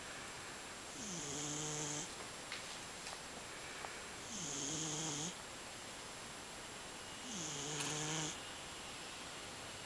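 Scottish Fold cat snoring: three pitched snores about three seconds apart, each about a second long, sliding down in pitch at the start and then holding steady.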